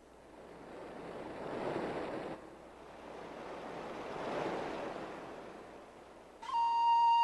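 Sound effect of ocean surf: two swells of wave noise rising and falling, the first cut off abruptly about two and a half seconds in. Near the end, a loud held wind-instrument note enters as the music begins.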